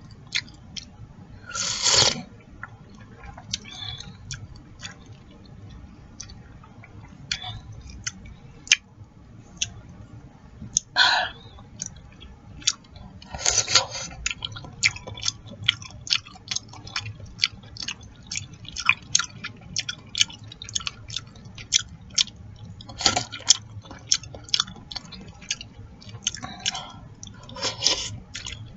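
Close-miked eating of chicken noodle soup: wet chewing and lip smacking in quick clicks throughout, broken by about five longer slurps of the soup.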